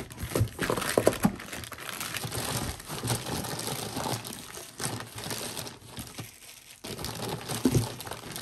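Clear plastic bag wrapping crinkling and crackling as hands pull it back off a boxed inverter, with a few soft knocks. The crinkling briefly pauses about six seconds in.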